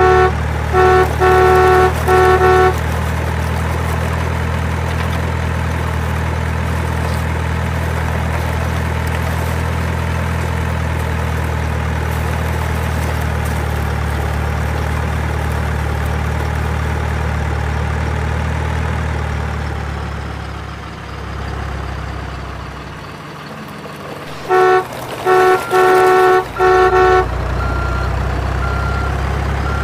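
Truck engine sound effect idling steadily, with a quick burst of four horn toots at the start and another four near the end. The engine fades out for a few seconds past the middle, and a string of short regular beeps begins at the very end.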